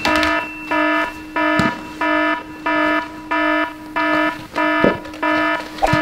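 Electronic fire-alarm-style tone pulsing about one and a half times a second over a steady low hum, with a few soft knocks in between.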